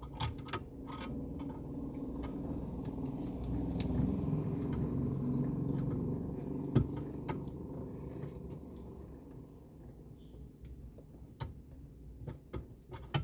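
Small metallic clicks and taps of screws and a hand tool being worked into the car radio's mounting bracket in the dashboard, with one sharper click about seven seconds in. Under them a low rumble swells over the first few seconds and then fades.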